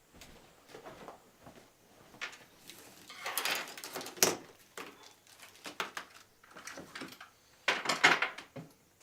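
Objects being moved and handled: scattered light knocks and clatter, with two louder spells of scraping and rustling, about three to four seconds in and again near the end, and a sharp knock at the end of the first spell.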